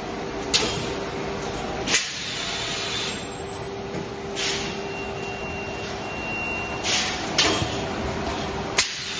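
Automated film-fed bag-making machine running with a steady hum, broken by about six short, sharp hisses of compressed air from its pneumatic valves and cylinders at irregular intervals of one to two and a half seconds.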